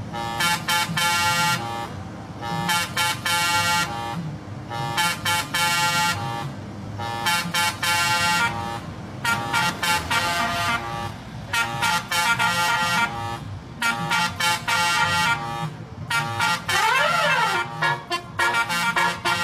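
Indonesian bus 'telolet' Basuri multi-tone horn playing a melodic tune as a series of chords about a second or so long with short gaps. Near the end one tone sweeps up and then back down.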